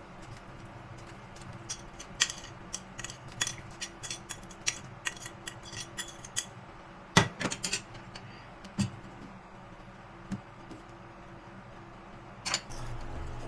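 A metal utensil clinking and tapping against a pot of soup broth. There is a run of quick, irregular light clinks, the loudest about seven seconds in, then a few scattered knocks toward the end.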